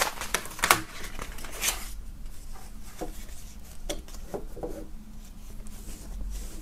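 Rolled paper posters being handled and pressed flat on a tabletop, with a cluster of paper crackles in the first two seconds, then scattered light knocks and ticks.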